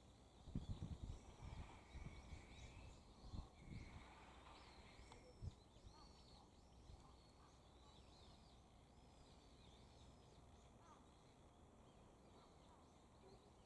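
Faint calls of small wild birds, many short arched chirps repeating throughout. A few low thumps come in the first few seconds.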